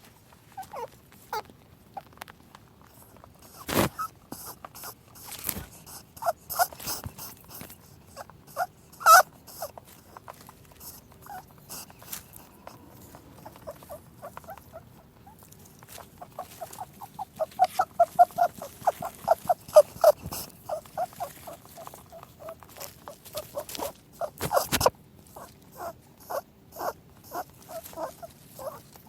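A rabbit making short oinking and squeaking calls, often in quick runs, with its longest, fastest run of oinks a little past the middle. A few sharp knocks stand out among the calls.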